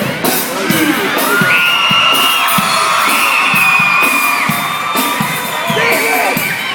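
Loud music with a steady drum beat, and a crowd of young people yelling and whooping over it in long held cries.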